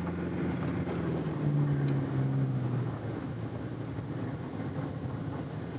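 A motor vehicle engine running, its pitch shifting about a second and a half in.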